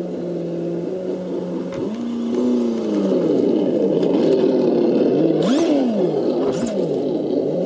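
Associated ESS-One engine sound unit on a Tamiya Lunch Box RC truck, playing its stock factory engine sound through its speaker. It idles steadily for about two seconds, then revs up and down repeatedly as the throttle is worked.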